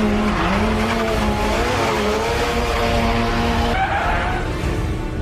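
Rally car engine held at high revs, its pitch wavering up and down, with tyres squealing as the car slides in a drift. Nearly four seconds in the sound changes and begins to fade.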